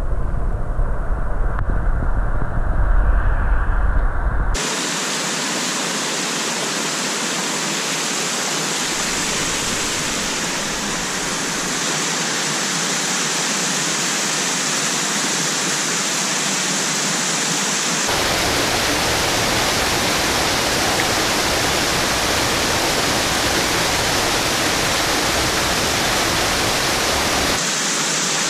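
Muffled, low rumble of moving water heard by an underwater camera for the first four and a half seconds. Then small waterfalls pouring into a rocky pool: a steady rush of falling water.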